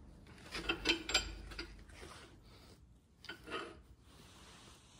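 Metallic clicking and rattling from a steel line boring bar and its cutter head being eased back through the bore by hand: a cluster of clicks about a second in and a shorter one about three and a half seconds in.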